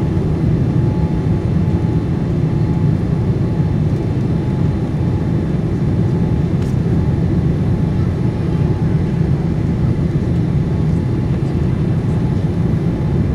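Steady cabin noise inside a Boeing 787-9 on approach: its Rolls-Royce Trent 1000 turbofan engines and the airflow make a constant low rumble, with a faint steady tone above it.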